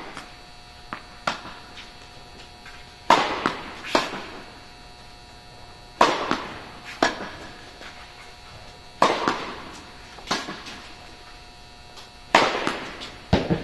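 Tennis balls struck by rackets and bouncing on an indoor hard court during a rally: sharp pops that echo around the hall. The loudest hits come about every three seconds, with lighter impacts between them.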